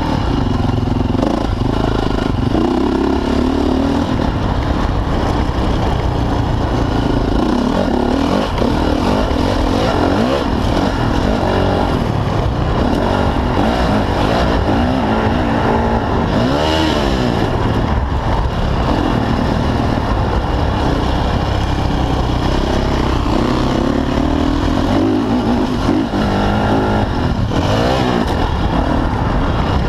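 Motocross dirt bike engine heard close up on board, revving hard and dropping back again and again as the rider accelerates and shifts around the track. About halfway through there is a sharp climb and fall in pitch.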